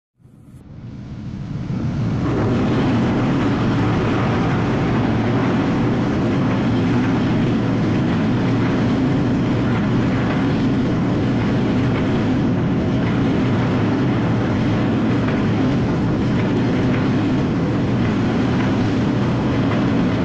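Passenger train coaches rolling past at close range, a steady rumble of steel wheels on the rails. The sound rises from silence over the first couple of seconds and then holds level.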